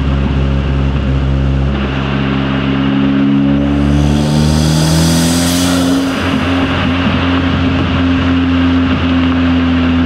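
Turbocharged 2.0-litre four-cylinder of a stage 2 Audi S3 8V, fitted with an Integrated Engineering cold air intake, turbo inlet and downpipe, running steadily under light throttle while driving; its pitch rises a little a few seconds in, with a brief rushing swell near the middle.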